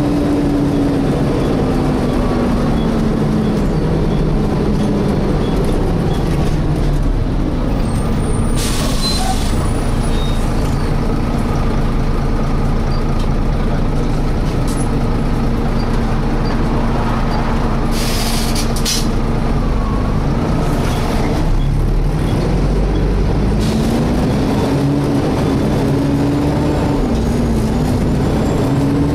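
Volvo B7TL double-decker bus's cooling fan whining over the running engine, heard from inside the bus: the whine sinks in pitch over the first few seconds, holds steady and climbs again near the end. Two short hisses of air from the bus's air system come about a third and two-thirds of the way through.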